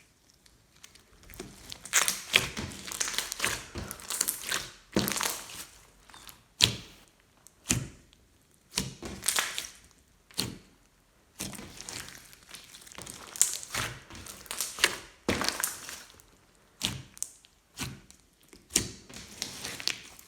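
Hands squishing, poking and pressing glossy slime, giving irregular bursts of sticky clicks, crackles and soft pops, each burst lasting up to about a second with short gaps between.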